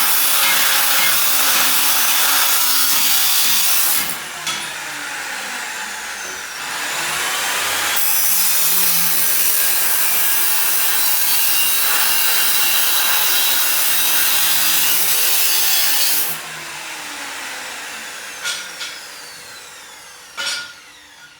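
Power cutting tool slicing through steel angle: two loud cuts, the first about four seconds long and the second about eight. Between them, and again after the second cut, the tool's motor winds down with a falling whine. A few sharp clicks come near the end.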